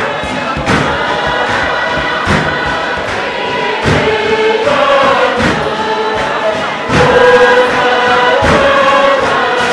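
Fatele: a group of men and women singing in chorus to a steady struck percussion beat, a little faster than one stroke a second.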